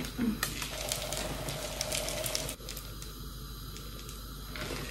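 Coconut wax pellets poured from a plastic jug into a metal melting pitcher, a faint trickling rattle. It eases off about halfway through and picks up again near the end.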